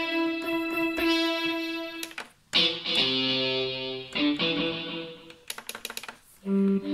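Korg X5 synthesizer presets being played: a repeated bright plucked-sounding note on the "Satellite" patch, a short break a little past two seconds, then a sustained chord on the "Mr. Tone" patch. Near the end comes a quick run of clicks and then a new note.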